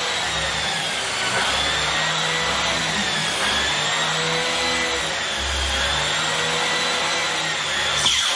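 Vacuum cleaner running steadily over carpet, its motor whine wavering slightly in pitch. Near the end there is a brief loud surge as the whine dips sharply and climbs back.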